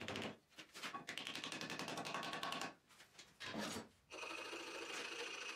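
A hand file scraping in strokes across the wooden top of an axe handle clamped in a vise, the longest stroke lasting about a second and a half. From about four seconds in, a steady hum with a constant high tone takes over.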